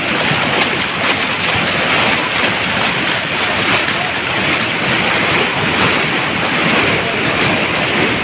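Rain-swollen mountain torrent in flash flood: muddy water rushing past, loud and steady without a break.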